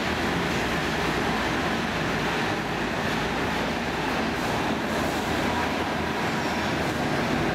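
Steady running noise of a Stockholm Metro C14 car heard from inside the passenger compartment: wheels on rail and body rattle, with no motor whine because this car's traction motors are disabled.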